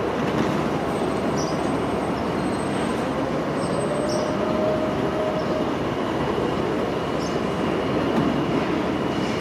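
R143 subway train moving slowly along an elevated station platform with a steady rumbling run of noise. A faint rising whine comes in about halfway through.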